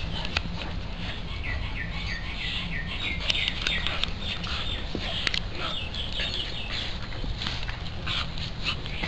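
Birds chirping in quick runs of short repeated notes, with scattered sharp clicks.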